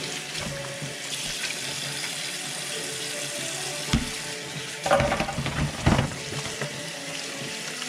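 Kitchen tap running into a stainless steel sink while boiled mud crabs are rinsed and cleaned under the stream. A few knocks and clatters of shell come between about four and six seconds in as the crabs are handled.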